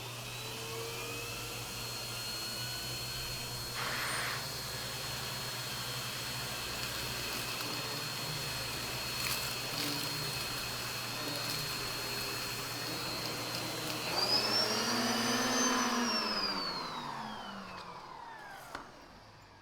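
Numatic James canister vacuum running with a turbo brush tool on carpet, a steady hum under a high whine. About fourteen seconds in it swells briefly, then the motor is switched off and winds down in a long falling whine.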